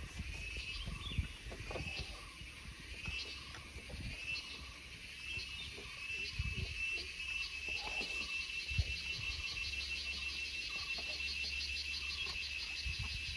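A knife cutting fresh mango on a wooden chopping board, heard as scattered soft knocks, under a steady outdoor chorus of chirping insects. A fast, pulsing trill joins the chorus about five seconds in.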